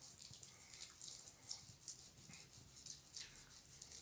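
Faint, irregular wet rubbing and crackling of hands being scrubbed with a cut lemon and cornstarch, the lemon squeezed as it is rubbed.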